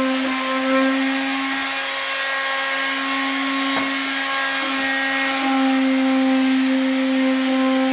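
Corded electric sander running steadily on a wooden kitchen cabinet frame, a constant motor hum under the hiss of sandpaper, sanding the frame before it is painted.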